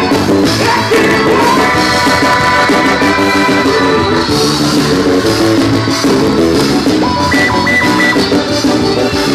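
Live band playing upbeat Latin-style music: drum kit keeping a steady beat under accordion and electronic keyboards.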